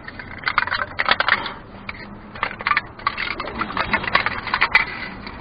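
Thin aluminium wrap, a flattened beer can and metal repair tape, being pressed and worked tight around a car's exhaust pipe by hand, crinkling and crackling in quick, irregular clicks.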